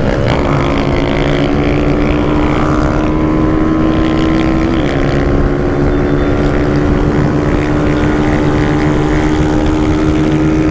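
Motorcycle engine held at high revs at full speed, a steady high drone with wind on the microphone. A brief slight dip in pitch comes about halfway through.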